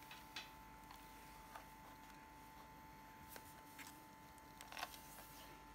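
Faint scattered clicks and taps of hands handling and turning a plastic Minolta F10BF compact film camera, over a steady faint hum. A small cluster of clicks near the end is the loudest.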